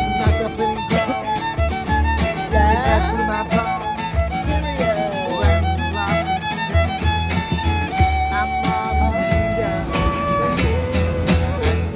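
Background music: a melody with bending, gliding notes over a steady pulsing bass beat.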